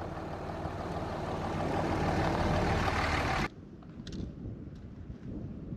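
Pickup truck carrying a truck camper driving over gravel toward the microphone, getting louder, then cut off suddenly about three and a half seconds in. After the cut, wind buffets the microphone.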